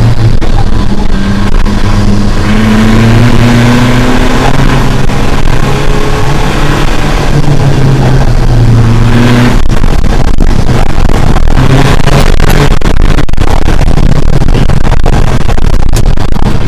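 Rally car's engine, heard loud from inside the stripped cockpit, pulling hard with its note climbing through the gears. About ten seconds in the engine note drops back and a rougher sound full of sharp knocks and rattles takes over.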